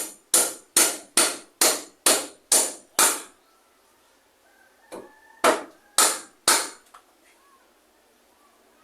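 Hammer blows on timber: a run of about eight quick, even strikes at roughly two a second, a pause of about two seconds, then four more strikes.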